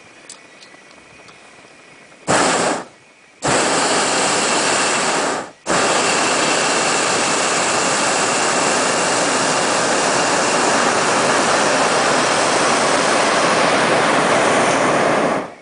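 Hot-air balloon's propane burner firing: a short blast, then a second of about two seconds, then one long burn of about ten seconds that cuts off sharply near the end.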